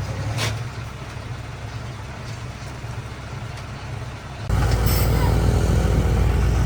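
Heavy machinery's diesel engine running steadily, suddenly much louder about four and a half seconds in.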